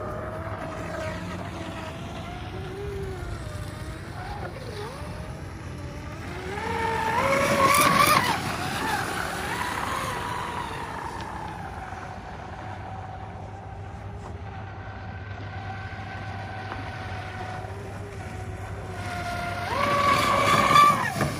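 Pro Boat Blackjack 42 RC speedboat's 8S brushless motor whining as it runs across the water at speed. It grows louder and higher in pitch as it passes close, about seven seconds in and again near the end, over a low steady hum.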